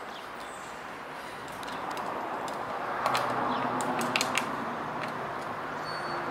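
Hands working on a chainsaw that is not running: a few sharp metallic clicks and clinks, bunched together about three to four seconds in, over steady outdoor background noise.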